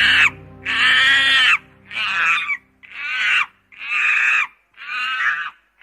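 An animal calling over and over, about one loud, high-pitched call a second, with background music under the first calls.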